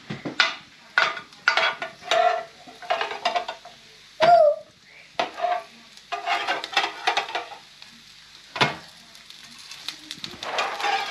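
Metal spatula scraping and tapping on a ridged grill plate in a string of short strokes as burger patties are pressed and turned. Under the strokes the patties sizzle.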